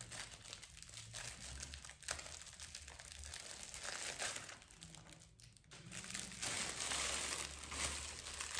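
Clear plastic packaging crinkling and crackling as it is handled and pulled open. It goes in uneven bursts, dips a little past halfway, then crackles more steadily and louder toward the end.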